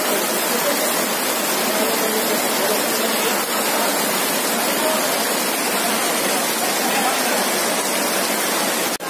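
Floodwater rushing in a torrent: a loud, steady roar of fast-moving water.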